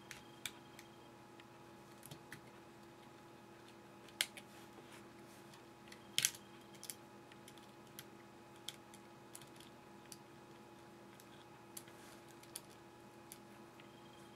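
Faint scattered clicks and taps of a plastic spudger prying at connectors and the logic board inside an opened iPhone 3G, the two sharpest about four and six seconds in, over a faint steady hum.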